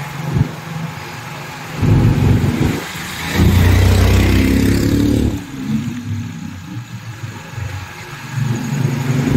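Motorcycle running along a road, heard from the rider's seat. A heavy low rumble swells about two seconds in and again from about three and a half to five seconds in.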